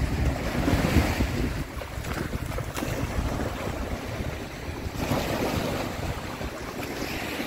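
Small waves breaking and washing up a sandy beach, swelling about a second in and again about five seconds in, with wind rumbling on the microphone.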